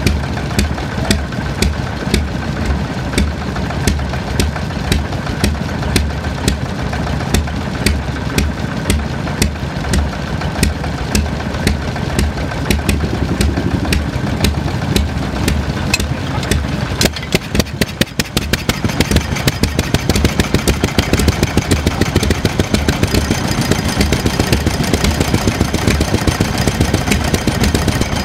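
Small single-cylinder hopper-cooled stationary engine running with a regular chugging exhaust beat. About 17 seconds in, the beat falters briefly, then picks up into a quicker, stronger rhythm.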